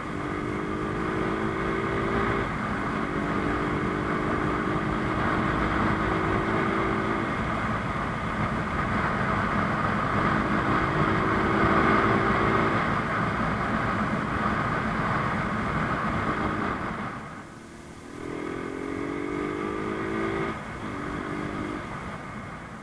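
Rusi Gamma 200 motorcycle engine pulling under riding wind noise. Its pitch climbs steadily and breaks off at each gear change. Near the end the engine drops away briefly, then climbs again through two more shifts.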